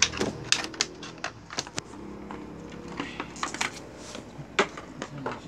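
Hard plastic clicking and tapping at irregular intervals, busiest in the first two seconds: a toy basketball figure and a loose piece being handled and fitted together.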